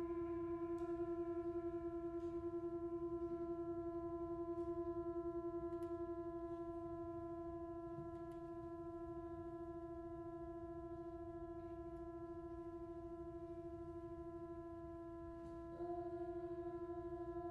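Solo cello holding one long, soft bowed note at a single unchanging pitch, with a slight fast wavering in its loudness. About sixteen seconds in the note steps a little louder.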